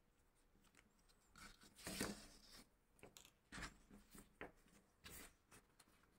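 Faint, scattered handling sounds of hand-stitching leather: short rustles and scrapes as thread is drawn through the stitch holes and a folded black leather strap is rubbed and pressed flat by hand, loudest about two seconds in.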